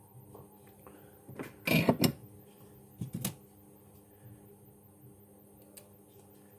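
Small tools and objects being handled on a workbench: two short clusters of clicks and knocks, the first lasting under a second and a second shorter one about a second later, over a faint steady hum.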